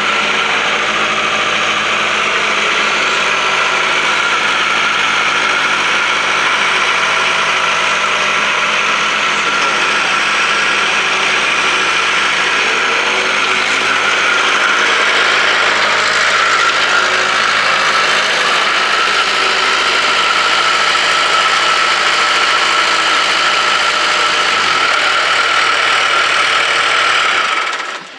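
Case 1845 skid steer loader's diesel engine running steadily. The sound drops away at the very end.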